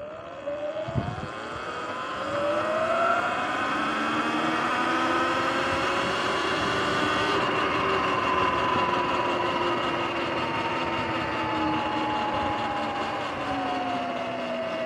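Sur-Ron electric dirt bike's motor and drivetrain whining as it speeds up: the pitch rises over the first couple of seconds, holds steady, then eases a little lower near the end. A steady rush of wind runs underneath.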